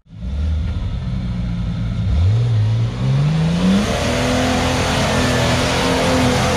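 A vehicle engine accelerating hard under a rushing noise, its pitch climbing about two seconds in and then holding high.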